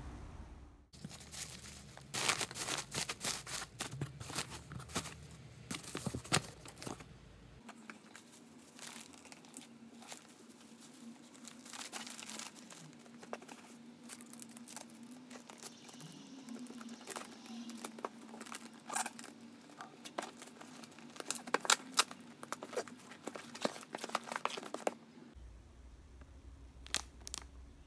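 Plastic packaging being handled and unwrapped by hand, crinkling with many sharp crackles; the busiest stretches come a few seconds in and again past the middle.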